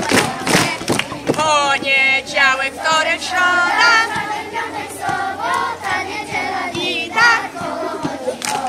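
Group of young cub scouts singing together, a wavering sung melody carrying most of the time, with rhythmic hand clapping at the start and again right at the end.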